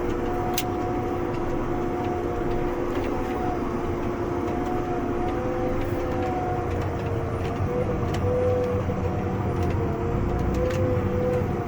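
John Deere 8320 tractor heard from inside the cab, its diesel engine running steadily with a low rumble and a wavering whine over it while it pulls the bale stacker wagon.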